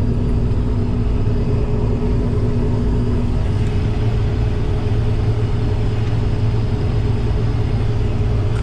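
Harvest machinery's diesel engine running steadily under load, with a deep hum and a steady whine. One of the tones drops out about three seconds in.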